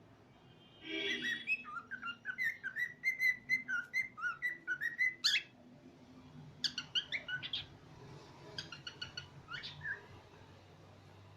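Cockatiel whistling and chirping: a quick run of short, pitched notes for about four seconds starting about a second in, then two shorter bursts of calls.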